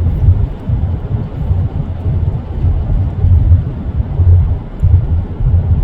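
Low, uneven rumble of a vehicle travelling along a road, heard from on board.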